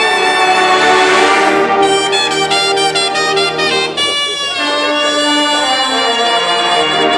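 University marching band's brass section playing loudly: full sustained chords, with a run of short punchy repeated notes about two seconds in.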